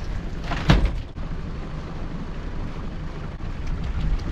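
Spencer Carter pot hauler running steadily as it draws in the rope of a string of inkwell pots over the side of a small boat. A single sharp knock comes about a second in.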